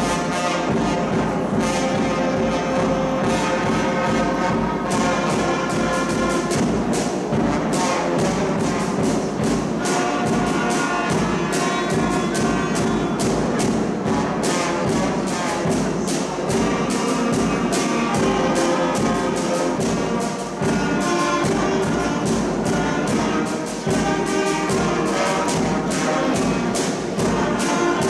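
A student wind band playing live, brass and woodwinds holding chords together over percussion hits that keep a steady beat.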